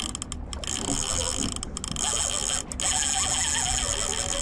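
Conventional fishing reel's drag buzzing steadily as a big fish pulls line off, with a few brief pauses.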